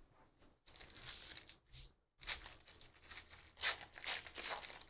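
Foil wrapper of a 2023 Panini Phoenix football card pack being torn open and crinkled by hand, in two stretches of crackling, the second longer and louder.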